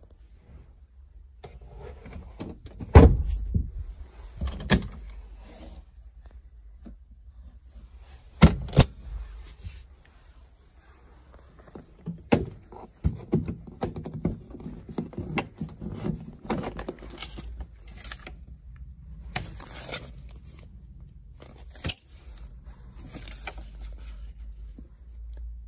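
Handling noises in a BMW E65's boot: a handful of sharp knocks and thumps from the spare-wheel well and its tools, then the first-aid kit compartment clicked open and its nylon first-aid bag rustled and clattered against the plastic trim.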